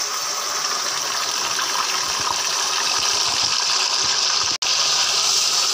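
Boiled minced beef and its wet cooking liquid poured into hot ghee, sizzling with a steady hiss. The sound drops out for an instant about four and a half seconds in, then carries on slightly louder.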